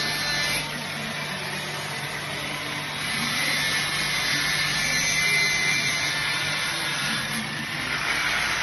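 Steady machine noise: a continuous rush over a constant low hum, a little louder from about three seconds in.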